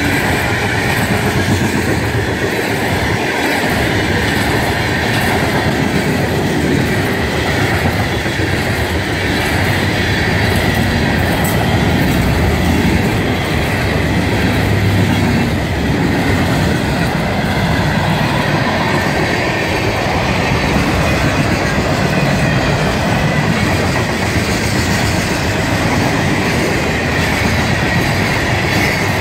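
Freight cars of a mixed train (covered hoppers, open hoppers, tank cars) rolling past: a loud, steady rumble and clatter of steel wheels on the rails.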